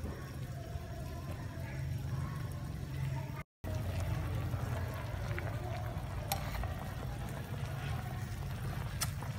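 Soup boiling vigorously in a metal pot on the stove: a steady bubbling over a low hum, with a brief dropout a little over three seconds in and a few faint ticks in the second half.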